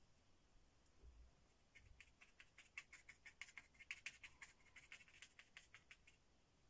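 Faint scratching of a plastic card's edge worked against dried acrylic paint: a quick run of small ticks and scrapes starting about two seconds in and lasting about four seconds.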